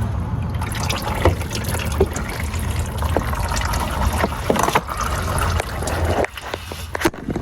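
Automatic transmission fluid trickling out of a loosened GM 200-4R transmission pan into a catch pan, with scattered drips and splats as it drains.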